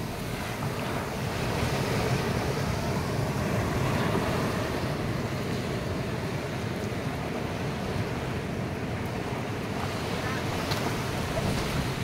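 Ocean surf breaking and washing up a sandy beach: a steady rushing noise of waves.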